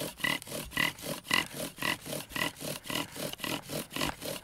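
Sagebrush bow drill spindle grinding and squeaking in the hearth board's notch under fast back-and-forth bow strokes: a steady rhythm of a few strokes a second, with a high squeak on every other stroke. This is bowing for a coal, the friction building up hot wood dust into an ember.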